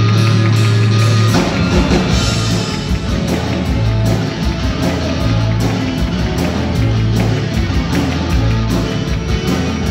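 Live rock and roll band playing, with electric guitars, saxophone, tambourine and drums. A low note is held at first, then the full band comes in with the drums about a second in.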